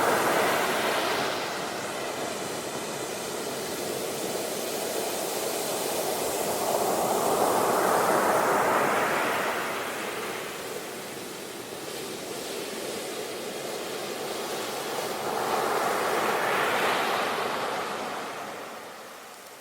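Ocean waves breaking and washing in, rising and falling in slow surges: loud at the start, then two big swells about eight seconds apart, fading near the end.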